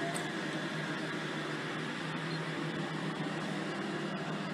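Sydney Trains OSCAR H-set double-deck electric interurban train departing and rolling past close by, a steady mechanical hum of its motors and roof air-conditioning units.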